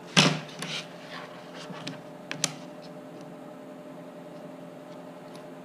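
Thin laser-cut plywood parts of a model hydroplane handled on a workbench: a scraping knock about a quarter second in, then a few light taps and clicks over the next two seconds. A steady low hum runs underneath.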